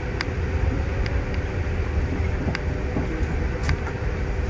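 Cabin noise inside a moving city bus: the steady low rumble of the engine and road, with a faint steady hum and a few short sharp clicks from the cabin.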